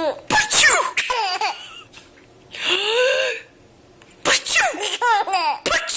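Baby laughing in three bouts of high-pitched giggles and squeals, set off by someone's sneezes.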